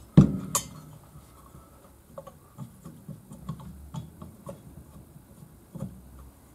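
Small metal parts of a moped engine being handled and worked on: a sharp knock just after the start, a second one soon after, then scattered light metallic clicks and taps.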